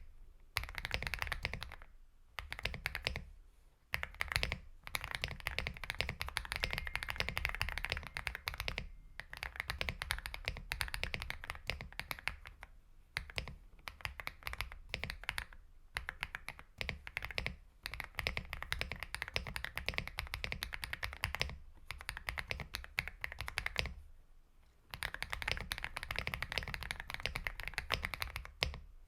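Typing on an Aula F75 mechanical keyboard with Star Vector switches: fast runs of key presses with frequent space-bar strokes from the thumb, broken by short pauses.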